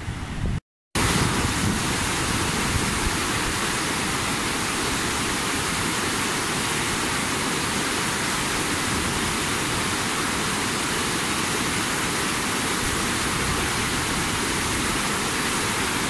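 Steady, loud rush of a river in flood after a typhoon, swollen brown water churning over rocks and rapids. Before it, wind buffets the microphone briefly, with a short cut-out about a second in.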